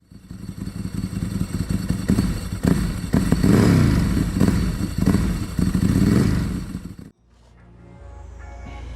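Kawasaki ZRX1100 motorcycle's inline-four engine revving up and down several times, then cutting off abruptly about seven seconds in. Music fades in right after.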